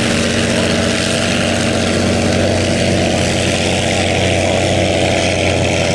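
Allison V-12 aircraft engine of a vintage hydroplane racing boat running at speed, its pitch holding steady.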